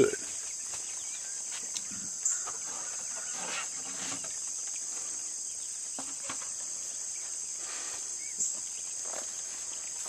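Steady, high-pitched insect chorus, with a few faint short knocks and rustles now and then.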